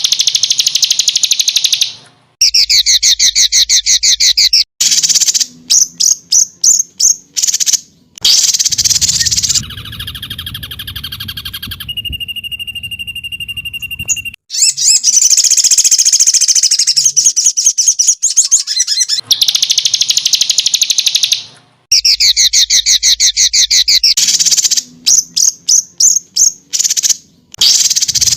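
Loud recorded songbird song of the kind used as a masteran training track for caged birds: long, very fast chirping trills alternate with choppy, stuttering runs of short notes. A single held whistle sounds near the middle, and then the same sequence of phrases plays again.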